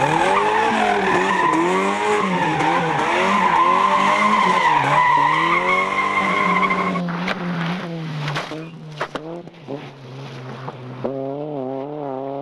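Rally car engine revving up and down repeatedly over a steady tyre squeal as the car slides. About seven seconds in, the sound drops away to a few sharp clicks and a steady low engine hum.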